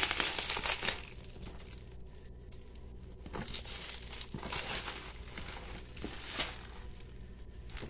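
Bubble wrap crinkling and rustling as it is pulled off a cardboard box by hand. It is loudest in the first second, then comes in further bursts of rustling.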